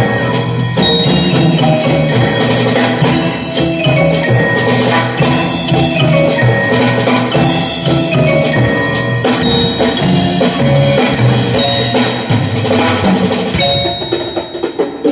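Music with marimba-like mallet percussion and drums, played loud through a car's aftermarket Audison three-way active speaker system as a sound demo.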